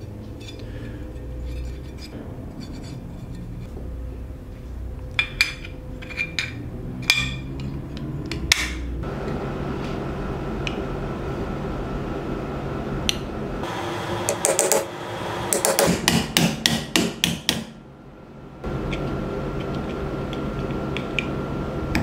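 Hammer tapping on the steel case of an old lock: a quick run of about a dozen sharp metal strikes, about four a second, past the middle. Before it come a few scattered clicks of metal parts being handled, over a steady background hum.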